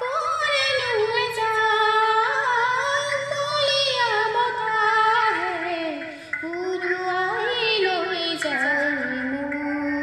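A woman singing an Assamese song over instrumental backing, in long held notes that waver slightly, with a brief break between phrases about six seconds in.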